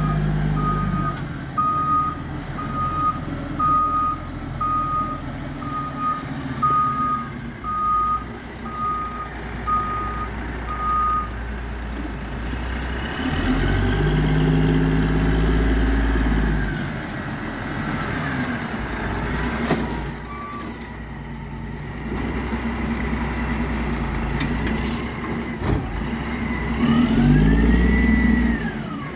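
Garbage truck's reversing alarm beeping about once a second for the first eleven seconds or so, over its diesel engine. The engine then revs up and back down twice, with a few sharp knocks in between.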